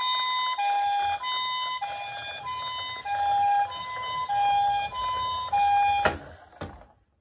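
Toy ambulance's electronic two-tone siren, a high and a low tone taking turns about every 0.6 s in the Japanese pee-poh pattern, over the low rumble of its plastic wheels rolling down a wooden ramp. About six seconds in there is a sharp knock, then a second one, and the siren stops.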